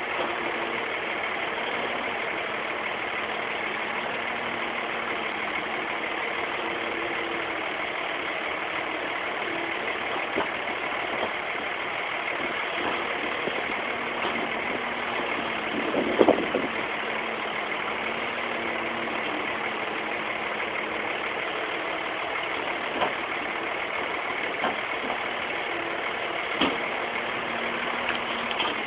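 Kobelco excavator's diesel engine running steadily, with a few short knocks and one louder brief burst about halfway through.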